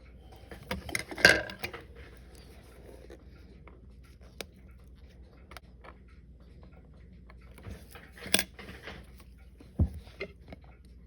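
Light clicks, taps and scrapes of small metal watchmaker's tools against watch parts during disassembly of a Citizen Leopard Diver, in a cluster about a second in and another near the end, with a duller knock shortly after.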